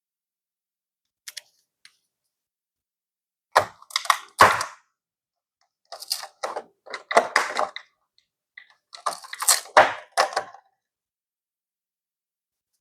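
Art-kit packaging and items being handled and unpacked by hand: a few light clicks, then three spells of tapping, clicking and rustling about a second or two long, with silence between.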